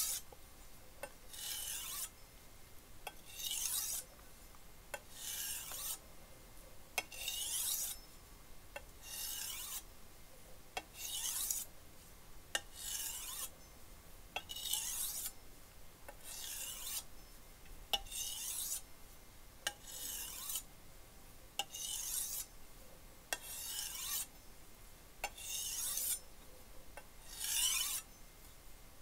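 Wusthof chef's knife being drawn across a wet 1000-grit Kramer by Zwilling glass whetstone in single sharpening strokes. Each stroke is a short scraping hiss, about one every two seconds, with a light tick as the blade is set down between them. The stroke is quiet because the medium-grit stone takes off less metal than the 400-grit stone.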